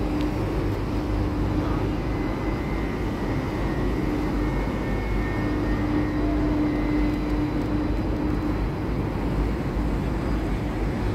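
Tugboat diesel engines rumbling steadily at work, with propeller wash churning the water. A steady mid-pitched hum fades in and out over the rumble.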